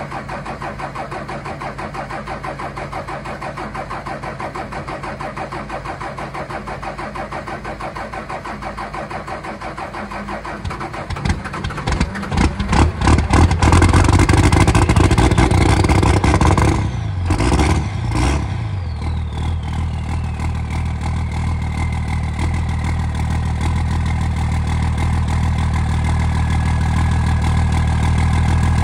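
2001 24-valve Cummins diesel cold-cranking at about 24°F: the starter turns it over in a fast, even rhythm for about eleven seconds before it catches and runs up loud and uneven. It stumbles twice about two-thirds of the way in, which the owner puts down to the AirDog lift pump losing prime for a moment. It then recovers, with a falling whine, and settles into a steady run.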